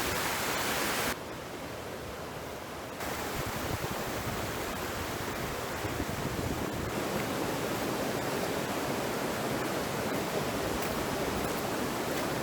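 Steady rush of flowing stream water. It drops abruptly quieter about a second in and comes back up about three seconds in, then runs on evenly.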